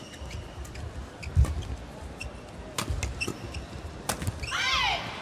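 Badminton rally: sharp racket hits on the shuttlecock about a second apart, the loudest with a thump about a second and a half in, and court shoes squeaking on the floor, most strongly near the end.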